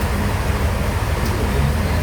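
Sawmill bandsaw machinery running with a steady low drone.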